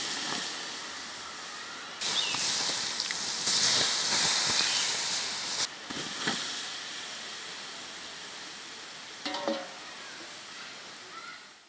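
Hot oil sizzling, as when spring rolls deep-fry. The sizzle starts abruptly about two seconds in and stops sharply a few seconds later, with a fainter hiss before and after.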